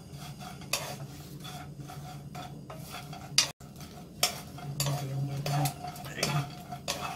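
Two wooden spatulas scraping and tossing dried small anchovies around a dry nonstick frying pan, the fish rustling and clicking against the pan in irregular strokes. They are being dry-toasted without oil over high heat to drive off moisture and the fishy smell. A steady low hum runs underneath.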